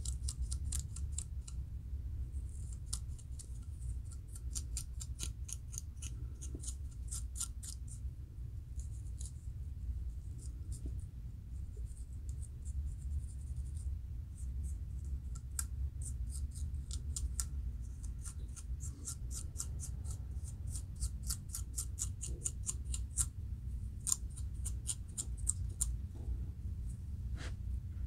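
Fine-toothed metal comb scratching across the scalp to lift dry dandruff flakes: quick, crisp scraping strokes, several a second, in runs with short pauses between them. A steady low hum sits underneath.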